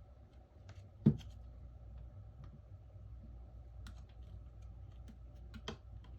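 Scattered small clicks and taps of repair tools working at a phone's cracked back glass as it is pried off, with one sharp click about a second in. A faint steady hum runs underneath.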